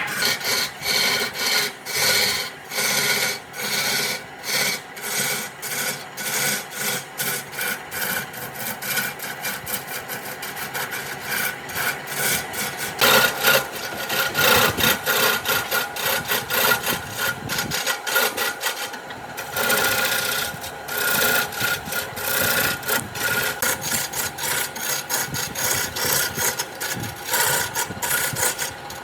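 Wood being worked by hand with an abrasive tool, rasping or sanding in repeated back-and-forth strokes, about two a second, with a brief pause about two-thirds through.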